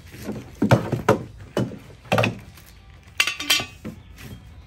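Parts of a portable youth basketball hoop kit being taken out of the box and handled: a series of about six sharp knocks and clinks, with two ringing clinks about three seconds in.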